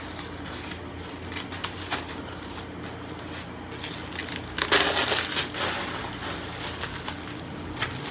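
Crinkling and rustling as individually wrapped Halloween flags in plastic bags are handled and the fabric flag is folded, with a louder burst of crinkling about five seconds in.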